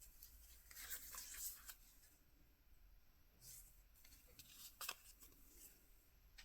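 Faint rustling of paper trading cards being handled, with a scratchy rustle about a second in and a short sharp tick near five seconds.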